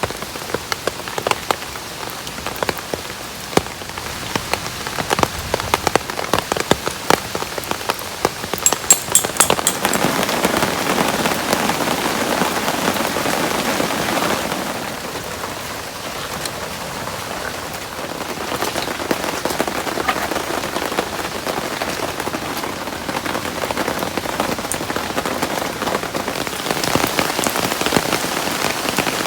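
Heavy rain falling, a steady hiss with many close drops ticking sharply during the first third, then growing denser and easing briefly around the middle.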